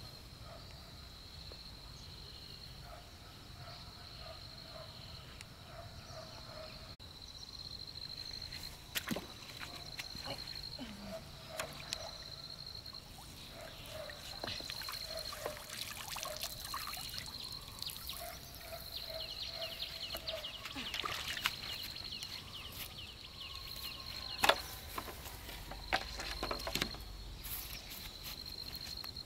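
Steady pulsing animal calls, a high repeated tone and a lower one, with water splashing and trickling from about eight seconds in and a few sharp splashes or knocks near the end.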